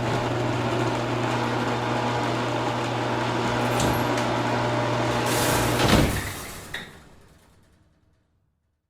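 Motorised garage door opening: a steady motor hum that rises to a loud clunk about six seconds in, then dies away over the next two seconds with a small click along the way.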